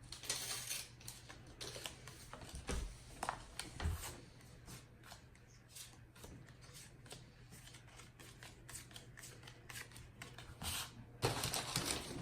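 1989 Upper Deck baseball cards being handled and flipped through one after another: a run of soft, light clicks and rustles, which get louder again near the end.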